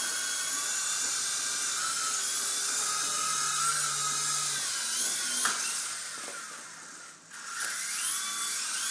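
Small electric motor and rotor of a toy helicopter whining steadily at a high pitch. The whine fades about six seconds in and almost drops out, then spins back up a second later.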